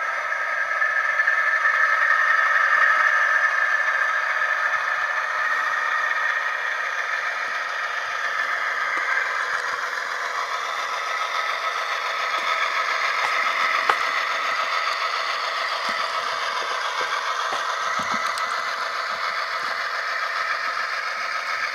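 Model diesel locomotive running with a Tsunami sound decoder playing GE Evolution-series (Gevo) engine sound through its small speaker, heard together with the rattle and clatter of the train's wheels on the track. There is one sharp click about two-thirds of the way through.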